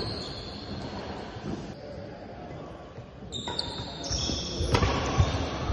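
Badminton doubles rally: players' footfalls thudding on a wooden sports-court floor, with racket hits on the shuttlecock, quieter for a moment and then a cluster of thumps near the end.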